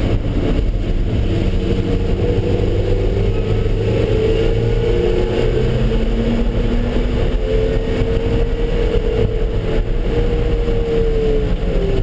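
Car engine under way, its note rising and falling several times as the car accelerates and slows, over a steady bed of road noise.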